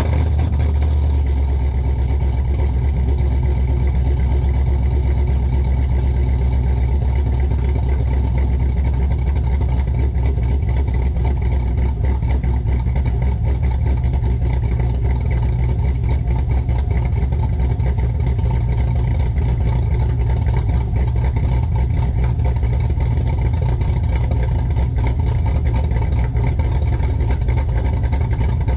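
GM LQ9 6.0-litre V8 with an aftermarket Norris camshaft idling steadily just after a cold start, with a deep, choppy exhaust note.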